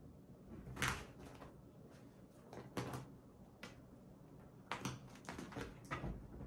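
Faint soft thumps and fabric rustles of a cat pouncing and scrabbling on a bed blanket, in several short bursts, with a quick cluster near the end.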